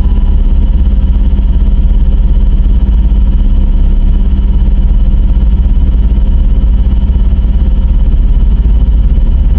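Loud, heavily distorted electronic synthesizer drone, low and steady with a few held tones and a fast flutter, as used in a mock emergency alert broadcast.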